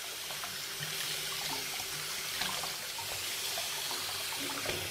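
Kitchen faucet running steadily, its stream splashing over beet greens that are being rinsed by hand in a stainless steel sink.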